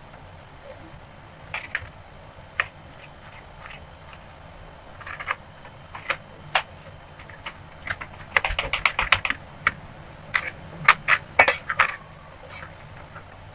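Kitchen knife tapping on a cutting board while slicing and dicing strawberries. Single clicks are spaced out at first. A quick run of chopping taps comes just past halfway, then a few more sharp taps.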